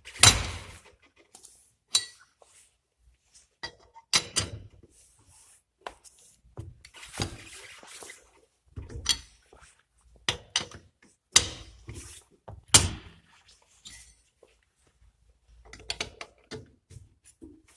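Lug wrench being fitted onto and worked against a car wheel's lug nuts: a series of irregular metal clanks and knocks, the loudest just at the start and again about eleven and thirteen seconds in.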